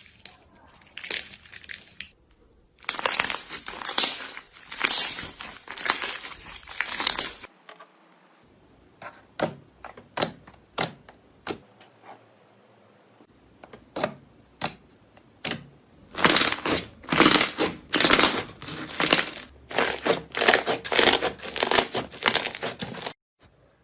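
Slime being squeezed and pressed by hand, making dense runs of crackling clicks and pops. About a third of the way in the crackling gives way to single sharp clicks for several seconds, then it goes dense again.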